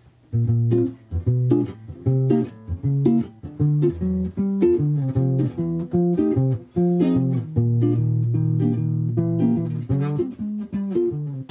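A guitar plays a line of plucked low bass notes with chords over them. It starts a moment in and keeps a lively rhythm throughout.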